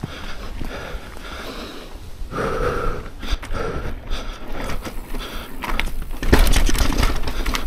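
Mountain-bike rider breathing hard in short, regular breaths over the clatter and rattle of the bike on a rough dirt trail. The rumble and rattling get louder about six seconds in as the bike speeds over rougher ground.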